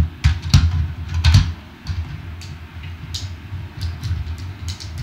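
Hard plastic parts of a Titans Return Leader class Optimus Prime transforming toy clicking and clattering as they are swung and snapped into place by hand, with dull handling thumps. The sharpest clicks come in the first second and a half.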